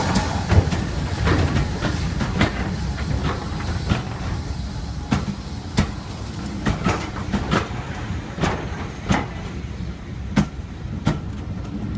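A train rolling along the track: a steady low rumble with the wheels clicking and knocking over rail joints at an uneven pace, a knock every second or so.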